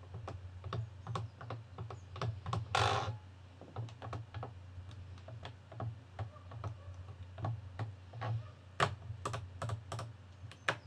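Hand-held radio-control transmitter being worked through its full travel: a run of irregular plastic clicks and taps as the sticks are pushed to their end stops and the three-position switch is flipped. There is a brief rustle about three seconds in, all over a steady low hum.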